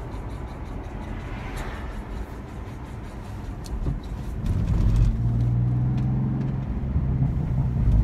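A small rock trapped between a BMW M3/M4's rear brake rotor and its dust shield, scraping and grinding as the wheel turns, heard from inside the cabin over road and engine noise. It comes as a quick run of sharp ticks at first, and the engine grows louder from about halfway as the car speeds up.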